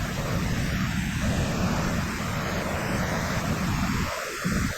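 Waterfall roaring steadily, with wind rumbling on the microphone; the low rumble drops away briefly near the end.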